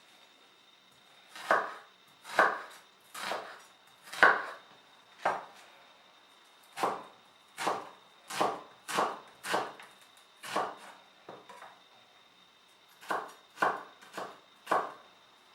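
Kitchen knife chopping a shallot into small dice on a cutting board. About sixteen sharp strokes come in uneven runs, starting about a second and a half in, with a short pause about two-thirds of the way through.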